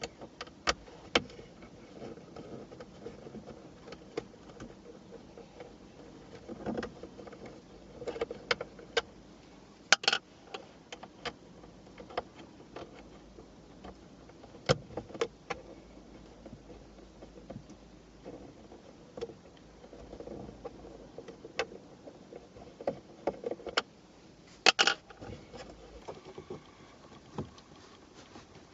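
Irregular clicks, taps and knocks of a hand tool and plastic trim while T20 Torx screws are undone and a backing panel is worked loose, with a few sharper knocks scattered through.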